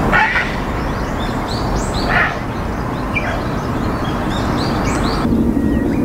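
Grey heron giving three short, harsh croaking calls over about three seconds, with small birds chirping high in the background.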